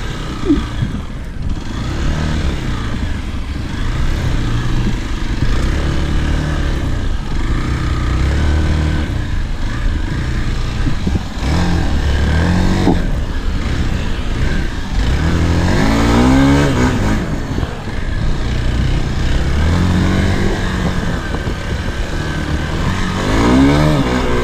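Off-road motorcycle engines running through a practice run, revving up and easing off over and over, with several rising revs in the second half.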